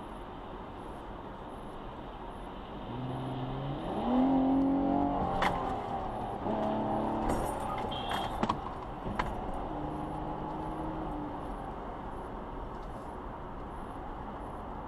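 Car on the road heard from inside the cabin: a steady road-noise hiss, with a louder pitched drone that steps up in pitch a few seconds in and comes back twice more. A handful of sharp clicks and a short rattle fall around the middle.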